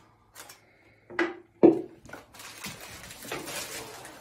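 A spoon knocks against a ceramic mixing bowl three times, the last two loudest. It is followed by steady scraping as oat batter is spread with a spatula in a parchment-lined baking dish.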